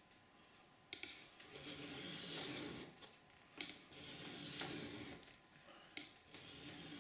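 Knife blade being drawn across a wet medium-grit diamond sharpening stone: three slow scraping strokes starting about a second in, each beginning with a light click as the edge meets the stone.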